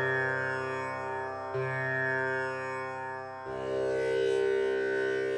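Ambient section of an electronic drum and bass track with no beat: sustained, drone-like chords that shift about every two seconds.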